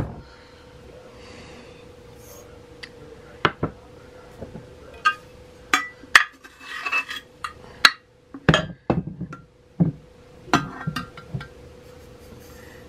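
A glass sugar jar being handled and opened: scattered clinks and knocks of glass and lid, several ringing briefly, the loudest right at the start and around six and eight and a half seconds in.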